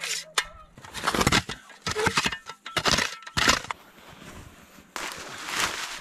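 Dry spruce twigs snapping and crunching as they are broken up and handled for fire kindling, a quick irregular string of sharp cracks and crackly rustling.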